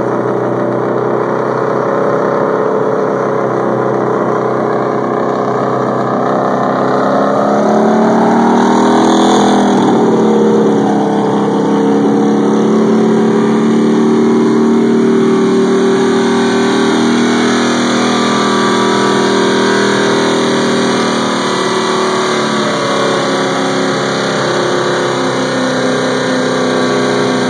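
NASCAR stock car's V8 engine running, rising in pitch to a rev about eight or nine seconds in, then dropping back and holding a steady fast idle with small rises and falls.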